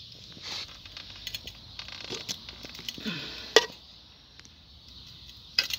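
A rubber piece being worked by hand onto a metal motorcycle part: scattered rubbing and light clicks, with one sharp click about three and a half seconds in.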